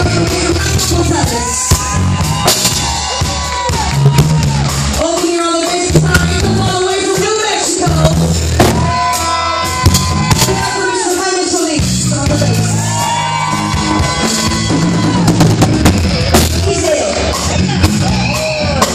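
Live Tejano band playing: button accordion, electric bass and drum kit with regular cymbal and drum hits, under a woman's singing voice.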